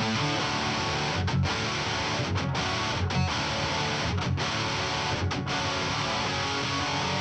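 Rock music with strummed electric guitar and bass, with short stop-time breaks about once a second and a low hit after each break.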